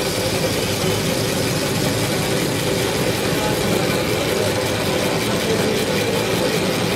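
Motor-driven cast-iron ice-shaving machine running steadily, its flywheel spinning as the blade shaves a block of ice, with a steady engine-like hum throughout.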